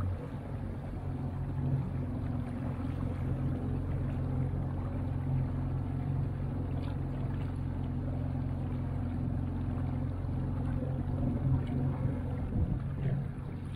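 Outboard motor of a small aluminium boat running steadily, a low even hum as the boat moves along.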